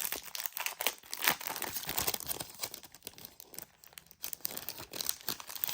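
Pad of scrapbook paper being opened and handled: irregular crinkling and rustling of paper and its wrapping, easing off for a moment about three seconds in.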